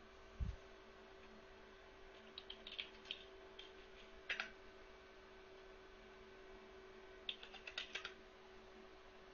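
Computer keyboard typing in two short bursts of key clicks, about two seconds in and again about seven seconds in, over a steady low hum. A single dull low thump comes just under half a second in and is the loudest moment.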